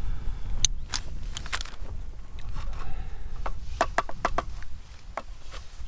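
Spoon clinking and scraping in a small metal camp pot as soup is served: scattered light clicks and taps, with a quick run of them a little past the middle.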